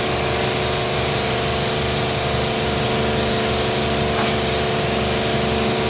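High-pressure jet wash lance spraying a steady hissing jet of water, over the continuous hum and low pulsing of the wash pump.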